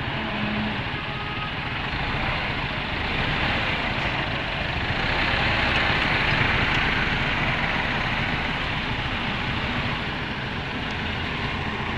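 Diesel farm tractor engines running steadily, among them a Massey Ferguson 385 working a front loader. The engine noise swells for a couple of seconds midway.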